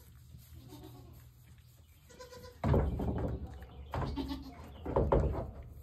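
Nigerian Dwarf goats bleating: three calls, the first about two and a half seconds in and longest, then two shorter ones about a second apart.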